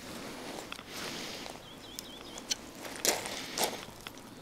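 Outdoor rustling with a few light knocks and two louder scuffs about three seconds in, and a short warbling bird trill about two seconds in.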